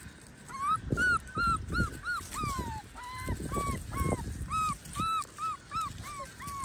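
Standard poodle puppies yipping and whimpering in a rapid run of short, high-pitched calls, about three a second, as they wrestle in play. Low scuffling thumps sound underneath.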